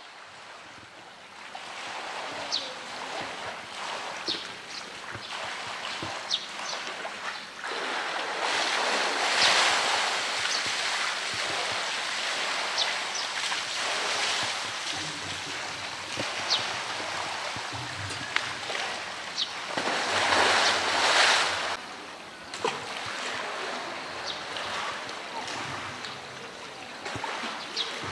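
Pool water splashing and churning as a polar bear swims through it, with two louder surges of splashing, about eight seconds in and again about twenty seconds in. Brief high chirps are heard here and there.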